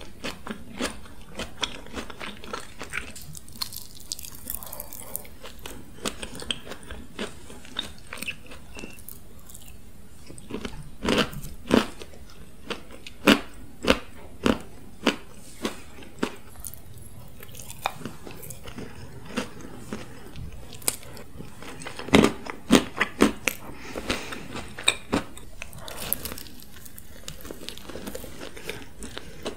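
A person chewing brownies, with wet mouth clicks throughout. Clusters of louder crunches come about eleven seconds in and again around twenty-two seconds in.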